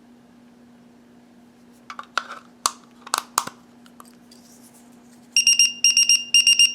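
Clicks and knocks as the AAA battery is fitted into a Unication NP88 numeric pager. Then, near the end, the pager sounds its alert: about four quick bursts of rapid, high-pitched beeps, signalling that the battery has been installed.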